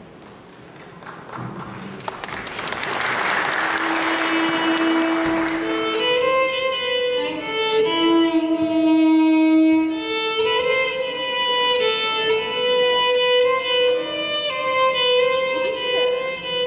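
Electric violin playing a slow melody of long held notes, amplified through the hall's sound system. Applause runs under the first few seconds and dies away.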